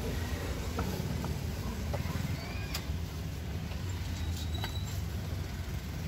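Steady low rumble of street traffic, with a few sharp knocks of a cleaver and knife on a wooden chopping board.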